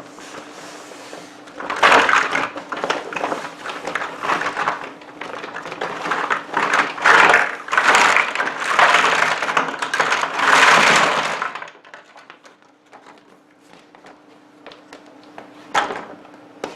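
A plastic bag crinkling and small plastic building blocks clattering as they are tipped out, for about ten seconds. After that come quieter scattered clicks of blocks being handled, with one sharper click near the end.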